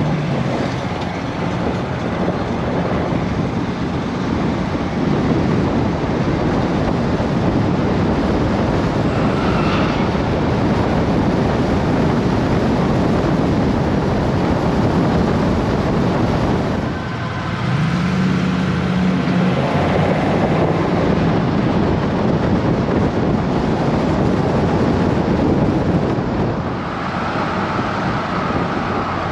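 Vehicle driving along a country road, heard from a microphone mounted outside at the window: steady engine, tyre and wind noise, with a low engine hum standing out briefly at the start and again about two thirds of the way through.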